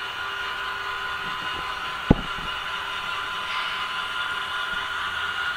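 HO scale model freight train running along the track, a steady whirring run with several held tones. A single sharp knock sounds about two seconds in.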